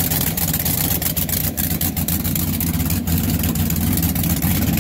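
Supercharged 581-cubic-inch Dart-block V8 of a 1979 Hondo three-point hydroplane idling steadily.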